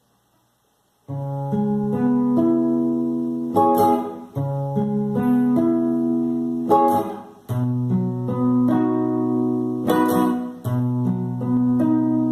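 Instrumental music: an acoustic guitar picking a slow melody. It starts about a second in and has a sharper strum roughly every three seconds.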